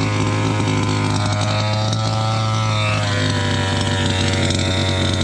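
Small gas two-stroke engine of a Rovan Baja 5B RC buggy running steadily at an even pitch.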